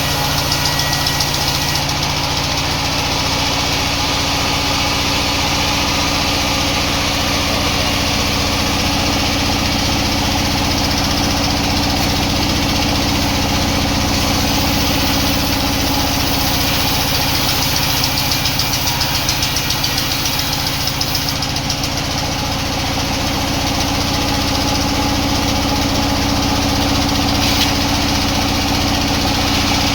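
Sawmill machinery running steadily: a constant low motor hum with a dense mechanical noise over it, without pauses or distinct knocks.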